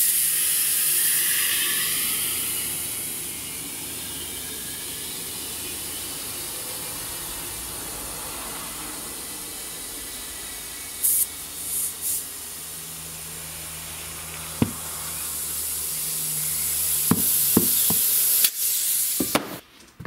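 Compressed air hissing through a tire inflator chuck into a riding-mower tire's inner tube as it is pumped up. The hiss eases after the first few seconds and grows louder again later. There are a couple of short louder bursts about halfway, and the hiss cuts off about a second before the end.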